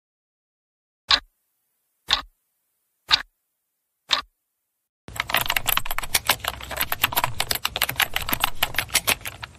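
A clock ticking four times, one tick a second, then rapid typing on a laptop keyboard for the last four and a half seconds.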